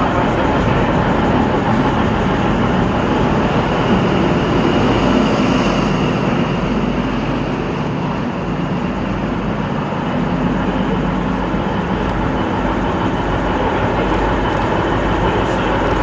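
NSW TrainLink XPT departing. Its carriages roll past close by, and its rear diesel power car pulls away, giving a steady, loud sound of wheels and engine.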